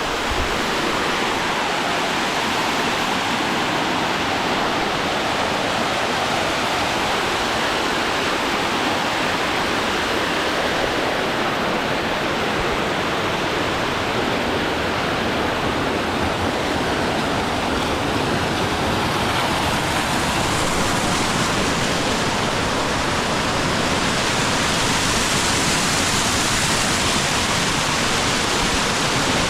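Waterfall pouring onto rocks: a steady, unbroken rush of water, growing a little brighter and hissier in the second half.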